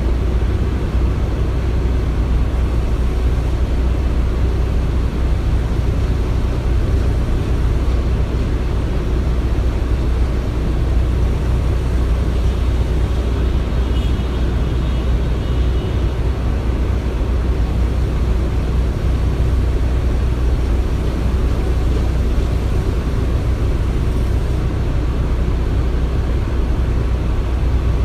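Construction-site ambience: a steady, deep rumble of heavy machinery running, with a faint high whine and a small click about halfway through.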